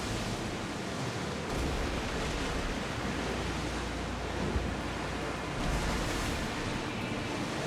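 Sea waves rushing steadily, with wind rumbling on the microphone.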